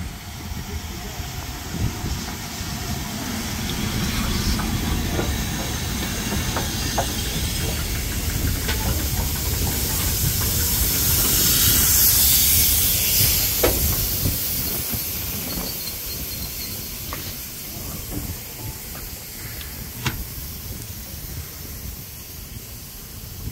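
LMS Black Five steam locomotive 44871 and its train passing close by, with loud hissing steam over the low rumble of the wheels on the rails. The hiss swells to its loudest about twelve seconds in as the steam drifts past, then fades as the coaches roll by, with a few sharp clicks from the wheels.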